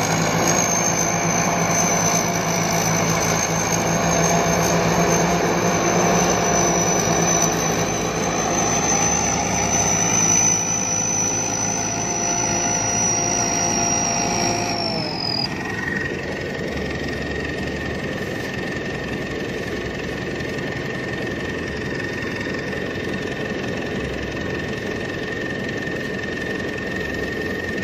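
Rice combine harvester engine running steadily with a high whine over it. About halfway through, the whine sags and stops, and the machine keeps running a little quieter with a thin steady tone.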